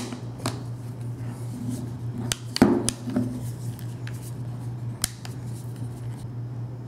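Plastic clicks and taps as an iPhone 6 is pressed and snapped into a plastic 1byone battery charging case: a handful of sharp, separate clicks, the loudest about two and a half seconds in. A steady low hum runs underneath.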